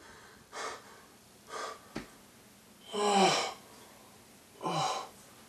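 A man breathing hard in several short, separate breaths and gasps. The loudest, about three seconds in, is a voiced gasp falling in pitch, and another comes near the end: startled panting on waking from a nightmare.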